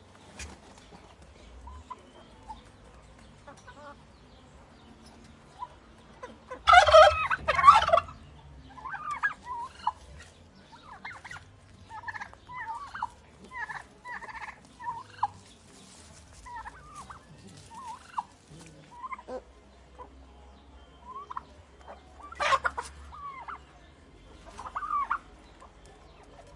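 Turkeys gobbling: a loud rattling gobble about seven seconds in and another about twenty-two seconds in, with many short calls scattered in between.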